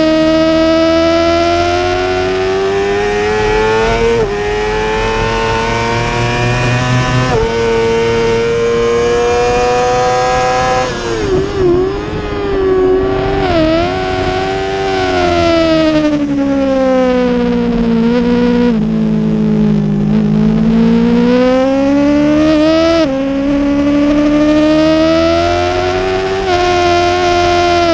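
A 2017 Yamaha YZF-R6's inline-four engine at racing revs: it climbs in pitch with quick upshifts, drops and wavers with downshifts and throttle blips under braking, sinks low through a slow corner, then climbs again with more upshifts.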